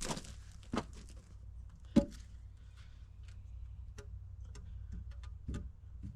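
Scattered light knocks and clicks, with one sharper knock about two seconds in, over a steady low rumble.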